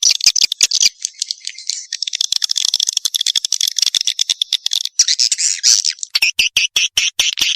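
Edible-nest swiftlet lure call: fast chattering chirps and clicks. About two seconds in they run together into a dense buzzing twitter, then break apart into quick separate chirps again near the end.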